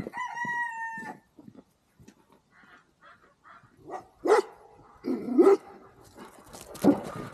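Farm poultry calling: one long, level call lasting about a second at the start, then loud, short calls in the middle and again near the end.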